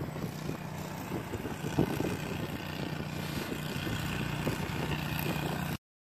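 A vehicle engine running steadily, with wind buffeting the microphone over it; the sound cuts off abruptly near the end.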